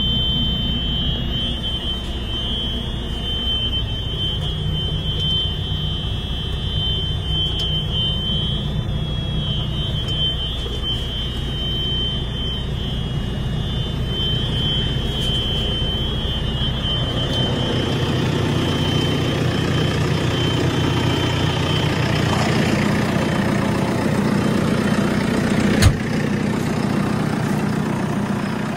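A JCB 4CX backhoe loader's four-cylinder diesel engine idling steadily. A high-pitched warning buzzer tone sounds over it in the cab and stops partway through, after which the engine sounds fuller. Near the end there is a single sharp knock.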